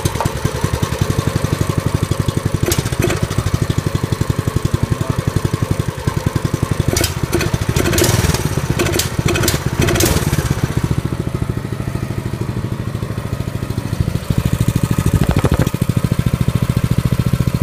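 Baja Warrior mini bike's 200cc single-cylinder engine, breathing through a Honda GX200 muffler, just started on the first pull and idling with a steady rapid putter. A few knocks and rattles come between about seven and ten seconds in, and the engine runs a little louder from about fourteen seconds in.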